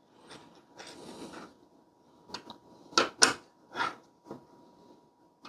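Magnetic screwdriver tightening the screws of a CPU cooler mounting bracket on a motherboard: a few faint scuffs, then about five short, sharp metallic clicks and taps from the driver and screws, the loudest about three seconds in.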